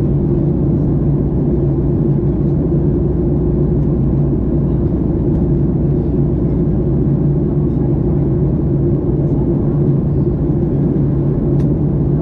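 Steady drone of a jet airliner's engines and airflow, heard inside the passenger cabin in flight, with a low even hum running under it.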